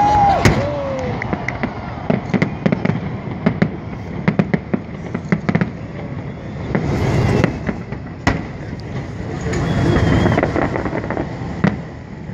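Fireworks salute: a sharp bang about half a second in, then a quick run of crackling pops over the next few seconds and another loud bang about eight seconds in, with crowd voices underneath.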